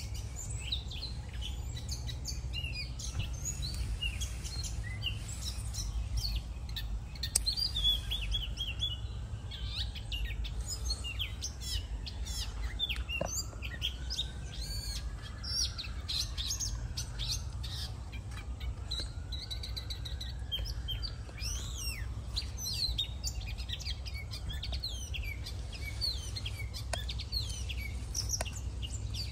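Small birds chirping: many short, high calls overlapping one another, over a steady low rumble.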